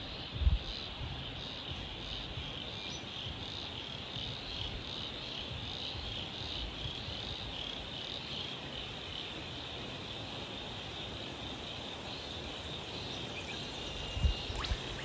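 Steady, shrill chorus of insects in the surrounding bush, with a couple of low thumps about half a second in and near the end.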